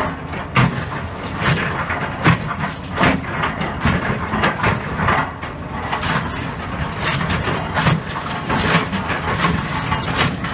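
Excavator's diesel engine running steadily, with frequent irregular knocks and cracks as its bucket works through concrete rubble and steel rebar to separate the rebar out.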